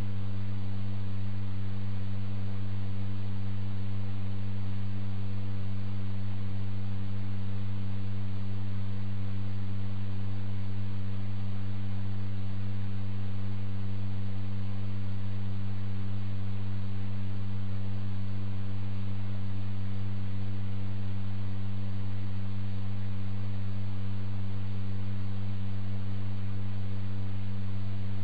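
Steady low electrical hum with a few fainter overtones above it, over a faint even hiss, unchanging throughout.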